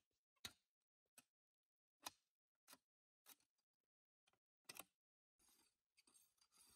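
Faint sharp snaps, about eight of them at irregular intervals, followed by a scratchy rustling that starts about five and a half seconds in.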